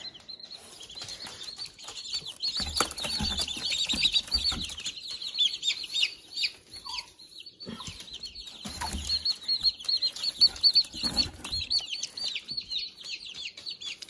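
Baby chicks, about five days old, peeping constantly in many short, high chirps, with bursts of rustling and knocks as they are handled and set down in straw.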